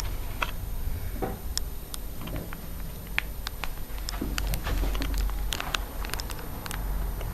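Scattered light clicks and taps of small parts and hand tools being handled during a fuel tank thread repair, at irregular intervals over a low rumble.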